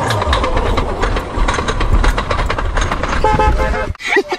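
BMW 135is coupe's turbocharged 3.0-litre straight-six pulling away in first gear, with tyre and road noise, and a brief steady tone about three seconds in. At the very end it cuts to a woman laughing.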